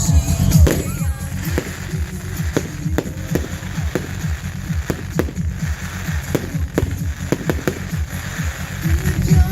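Fireworks going off in a rapid, irregular series of sharp bangs and pops over loud music.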